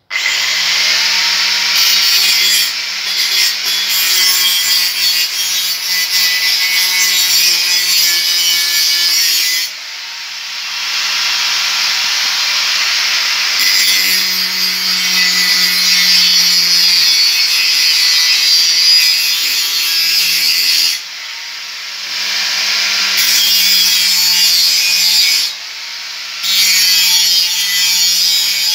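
Hand-held electric angle grinder switched on and run against a metal hoe blade, its disc shrieking on the steel over a steady motor hum. The grinding eases off briefly three times, about ten seconds in, just past twenty seconds and near twenty-six seconds, then bites again.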